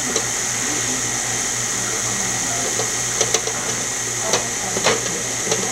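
KitchenAid Ultra Power Plus stand mixer running steadily, its beater turning through chocolate cake batter in a glass bowl, with a few light ticks around the middle.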